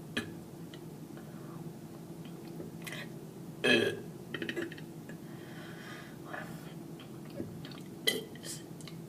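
A person lets out a short, loud burp about four seconds in, with quieter mouth clicks and smaller throat sounds around it. A steady low hum runs underneath.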